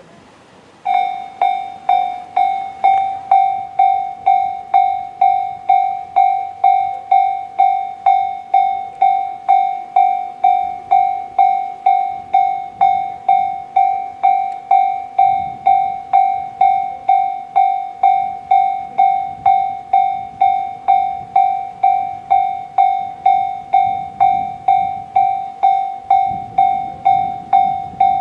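Electronic railway level-crossing warning bell sounding the JR standard tone, a clanging pulse repeated about twice a second, starting abruptly about a second in: the crossing has been activated for an approaching train.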